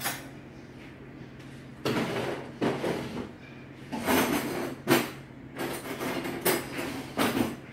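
Metal kitchen utensils and dishes clattering and scraping in a string of short bursts, about half a dozen over five seconds, as a fork is fetched and handled.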